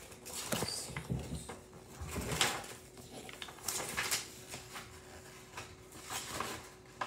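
Irregular handling noises close to the microphone: a run of rustles, scrapes and soft knocks as things are moved about.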